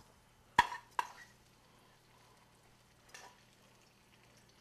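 Metal tongs clacking sharply against a sauté pan twice, about half a second apart near the start, then a softer scrape a couple of seconds later, as glazed onions are lifted out of the pan.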